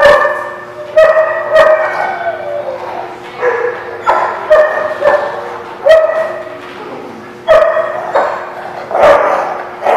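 A dog barking over and over, about a dozen sharp barks spaced half a second to a second and a half apart, each one echoing in the room.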